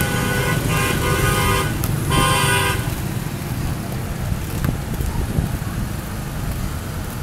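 Busy street traffic of motorbikes and scooters running past, with a horn honking three times in the first three seconds.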